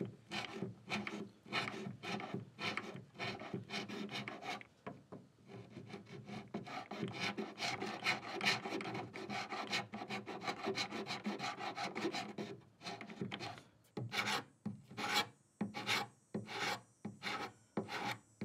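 A small hand scraper is scraping old lacquer finish off a mahogany edge in short, repeated rasping strokes, about two or three a second. Over the last few seconds the strokes come more separate and crisper.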